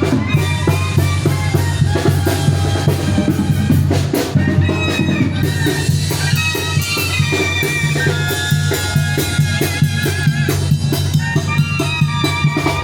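Tamborazo band music: a tambora drum and cymbal beating a steady rhythm under trumpets and saxophones playing held melody lines over a continuous low bass.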